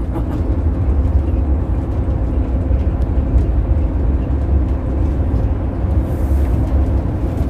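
Moving vehicle heard from inside the cab: a steady low rumble of engine and road noise, with a faint even engine drone over it.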